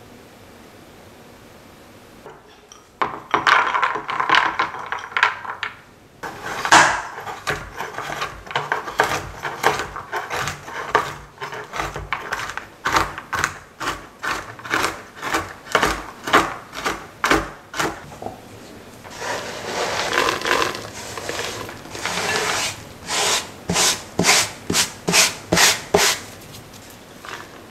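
Chef's knife chopping macadamia nuts on a plastic cutting board: a long run of sharp chops, about two to three a second, starting a few seconds in.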